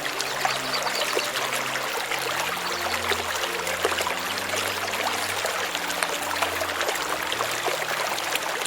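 Water running steadily, like a stream or trickle, with a dense hiss full of small splashes and faint low sustained tones underneath.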